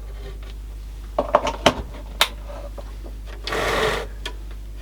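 Handling noises on a workbench: a few sharp clicks and knocks, then a brief scraping rasp about three and a half seconds in, over a steady low mains hum.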